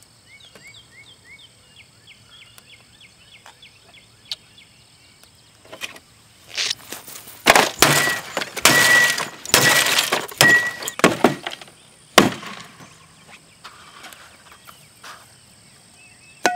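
A television set and grapefruit being smashed: a run of loud crashing blows with breaking glass and bursting fruit, starting about six seconds in and ending in one sharp crack around twelve seconds.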